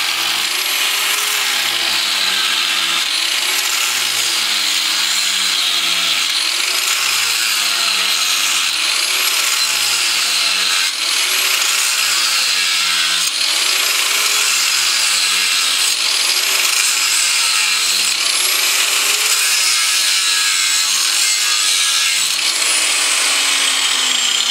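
Angle grinder disc cutting into a steel crankshaft, grinding loudly and without pause. Its pitch sags and recovers every second or two as the disc is pressed and rocked in the cut. It is grooving out a crack in the shaft to prepare it for welding.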